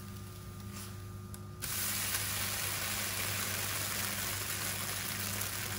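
Crêpe batter frying in a hot oiled pan: a steady sizzling hiss that starts suddenly about one and a half seconds in, over a low steady hum.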